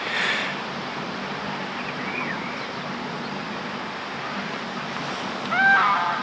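Steady wind and water noise at the lake's edge, where a tench lies in a landing net. A brief louder swish comes just after the start, and a short call with a few bending pitches comes near the end.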